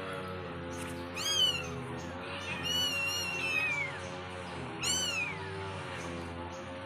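Kitten mewing three times in high, thin cries; the middle one is longer and drawn out.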